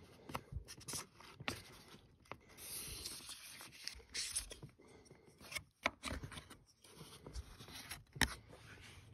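Carpenter's pencil scraping along a ribbed metal roof panel as it traces a circle around a pivoting wooden shim, with a few sharp clicks, the loudest about six and eight seconds in.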